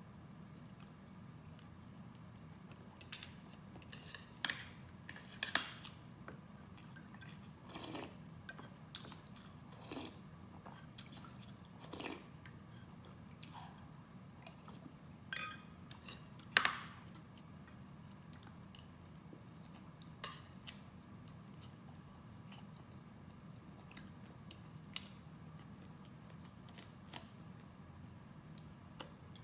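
Close-miked eating sounds: scattered wet mouth smacks and clicks of a person chewing food such as tea egg and rice noodles, with a few sharper clicks, the loudest about five and a half and sixteen and a half seconds in.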